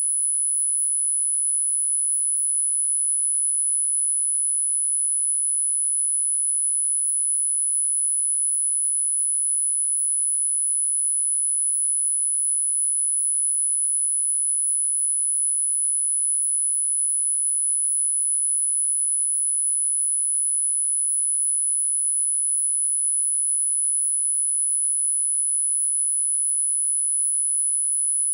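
A single electronically generated sine tone, very high-pitched and held perfectly steady, with no change in pitch or loudness.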